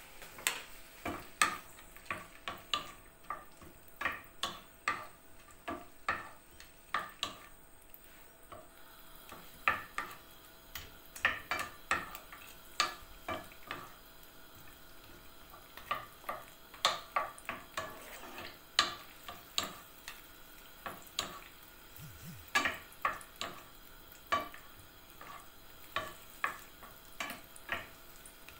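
Wooden spoon stirring shrimp in a nonstick frying pan, knocking and scraping against the pan in irregular strokes about one or two a second. A faint frying sizzle runs underneath.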